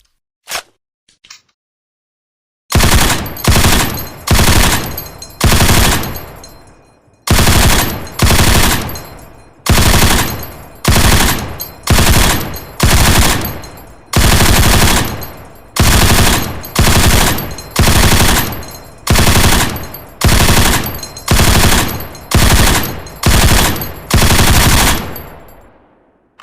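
M240 machine gun (7.62×51 mm NATO) firing about twenty short bursts, roughly one a second, starting about three seconds in. Each burst trails off in an echo.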